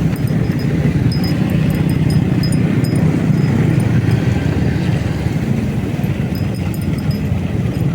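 Motorcycle engine running steadily under way, a constant low hum with road noise.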